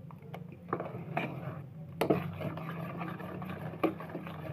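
Metal spoon stirring thick dosa batter in a stainless-steel bowl, scraping the sides with several sharp clinks of spoon on steel, as baking soda is mixed in just before cooking. A steady low hum runs underneath.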